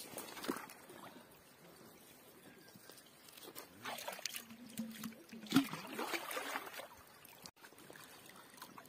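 Pond water splashing and sloshing as a hand works a submerged drain-pipe fitting, with a cluster of splashes around the middle. Water trickles and pours out through the drain pipe as the pond is let down.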